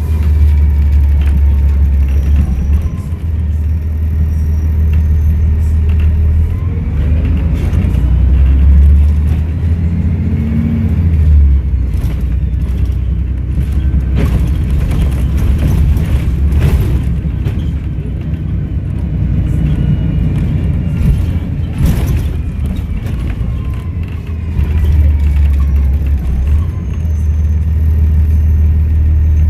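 Volvo B7RLE bus's six-cylinder diesel engine running under way, a strong low drone that rises and eases as the bus pulls and the Voith automatic gearbox changes, with the turbo whistle gliding up and down above it. Sharp knocks and rattles sound now and then, the loudest about 14 and 22 seconds in.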